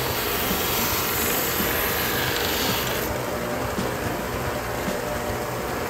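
Benchtop belt-and-disc combination sander running, its belt grinding the edge of a glued leather piece with a rasping hiss. About halfway through the grinding hiss stops as the piece is lifted off, and the motor and belt run on steadily.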